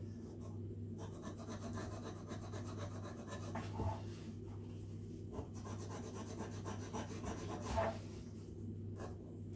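Scouring pad rubbing back and forth over the sealing surface of a Linkert M74B carburettor part to clean it, with light knocks of metal parts about four seconds in and again near eight seconds.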